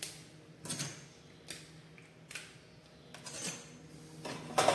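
Steel measuring tools, a try square and a steel rule, being handled and set down on a workbench and against cable trunking: a series of light clicks and knocks about once a second, the loudest knock near the end.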